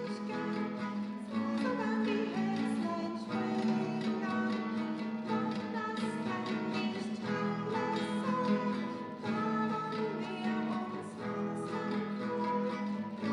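Nylon-string classical guitar played continuously, chords with changing notes.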